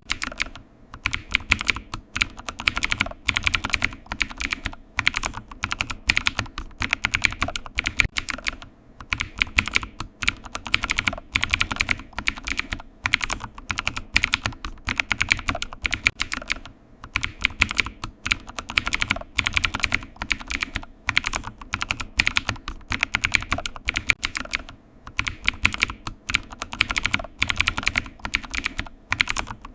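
Computer keyboard typing: a fast, steady run of key clicks, broken by short pauses every few seconds.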